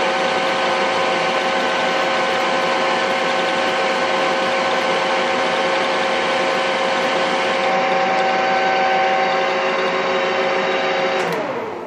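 Metal lathe running with its gears whining steadily while the tool turns a soft structural steel rod under power feed. Near the end the whine slides down in pitch and fades as the spindle runs down.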